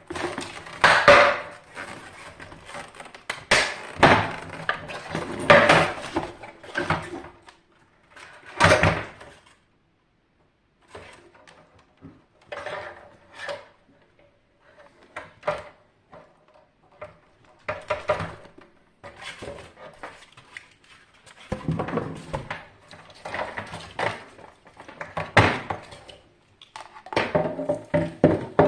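Tools and metal parts of a Hajdu AF-U-5 water heater clinking, knocking and scraping in irregular bursts as it is taken apart, with a brief pause about ten seconds in.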